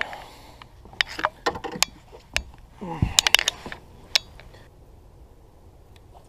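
A run of sharp clicks and clinks, like gear being handled on a boat deck, with a dull thud about three seconds in. After that only a low, steady background hum remains.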